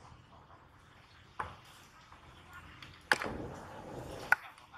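Monkey splashing into shallow floodwater: a sharp smack about three seconds in, followed by about a second of splashing water. A smaller smack comes earlier and a sharp click near the end.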